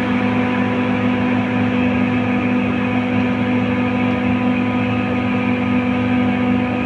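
Compressor running steadily: a constant motor hum with a fixed pitch and no change in speed.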